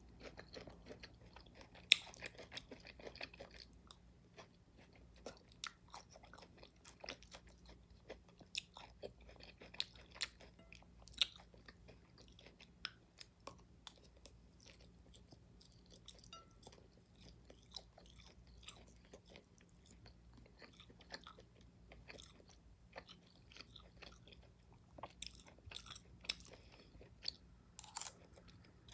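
Close-up chewing and mouth sounds of a person eating a meal with a fork: many small, sharp smacks and clicks, with a faint steady low hum underneath.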